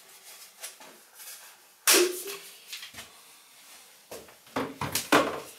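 Hard clicks and knocks of a sealant gun being handled while its near-empty cartridge is swapped for a new one: a sharp knock about two seconds in, then a quick run of clicks and clatters near the end.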